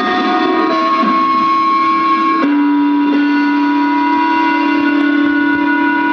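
Evening 5 p.m. time-signal chime played over a town's wired-broadcast loudspeaker system: a slow melody of long held electronic notes, the pitch stepping to a new note about two and a half seconds in.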